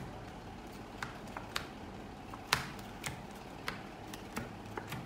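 Playing cards being dealt and laid down on a felt table: a string of short, sharp card snaps and taps at irregular intervals, the loudest about two and a half seconds in.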